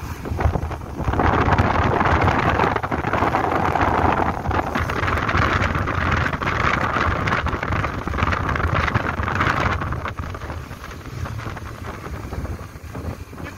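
Wind buffeting the microphone on a moving motorcycle, a loud rough rush over a low engine-and-road rumble. It eases off about ten seconds in.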